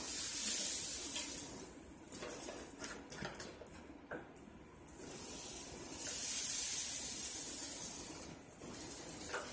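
Salt pouring from the spout of a cardboard salt box into a spoon: a dry, grainy hiss in two pours, a short one at the start and a longer one starting about five seconds in.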